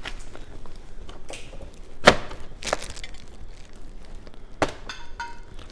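A clear plastic bag of sauce-coated seafood-boil seafood rustling and crinkling as hands dig through it, with several sharp cracking snaps, the loudest about two seconds in.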